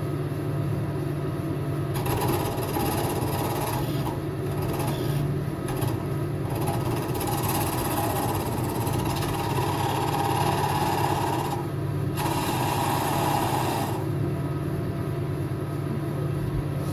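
Wood lathe motor running with a steady hum while a hand-held turning tool cuts into the spinning wood, giving a rough scraping hiss in long stretches with brief breaks, the cutting stopping about fourteen seconds in.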